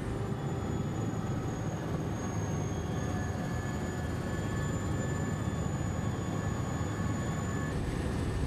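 Military helicopter heard from inside the cabin: a steady high turbine whine over a low engine and rotor drone. Shortly before the end the highest whine cuts off and the noise changes.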